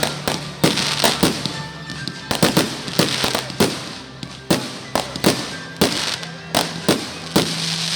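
Fireworks going off in quick, irregular succession, several sharp bangs a second with crackling between them.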